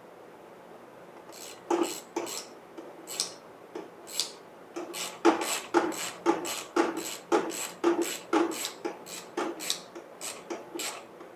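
Hand tools working on the metal engine cover as it is bolted back on: a run of sharp metallic clicks and knocks, irregular and roughly two a second, starting about two seconds in and loudest in the middle.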